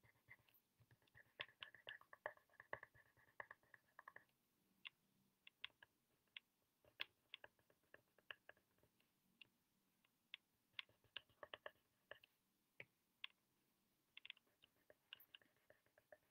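Faint scratching of a coloured pencil on paper: many short, irregular strokes as an area is coloured in.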